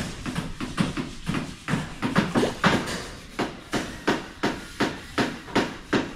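A steady series of sharp knocks, about three a second, loudest and most regular in the second half.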